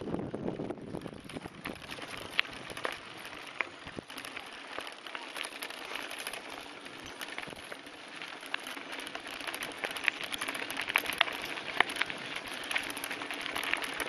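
Mountain bike rolling along a dirt and gravel trail: tyres crunching, with scattered clicks and rattles from the bike, getting louder in the second half.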